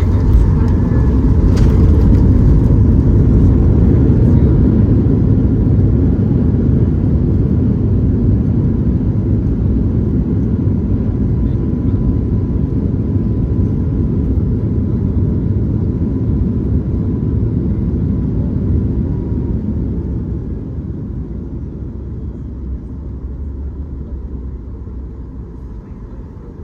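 Boeing 737 MAX 8's CFM LEAP-1B engines and undercarriage heard from inside the cabin on the landing roll: a loud low rumble that dies away steadily as the aircraft slows. Over it a thin steady engine whine slides down and stops about two-thirds of the way through. A couple of sharp clicks sound right at the start.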